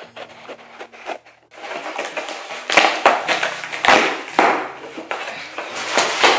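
A package being torn open and handled: a rapid run of crinkling, rustling scrapes that grows louder about a second and a half in.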